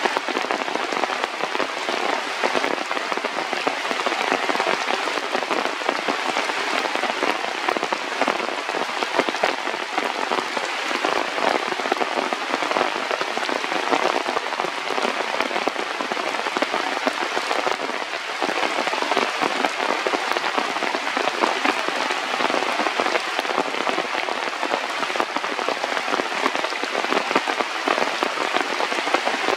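Steady rain falling, a dense, unbroken patter of drops.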